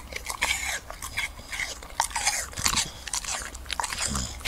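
A dog chewing chunks of raw apple, crunching them repeatedly at an irregular pace.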